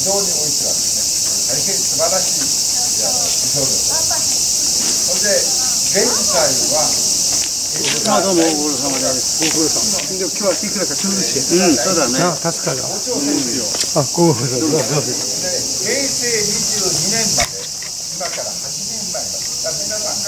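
A steady, high-pitched chorus of summer insects shrilling, which dips slightly in level near the end. Children and adults chatter in the middle.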